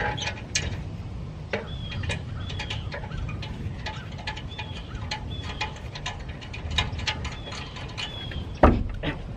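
Hand tools clicking and clinking irregularly on metal deep in a car's engine bay as parts are bolted back on, with one heavier thump near the end. A bird's short falling chirp repeats in the background over a steady low rumble.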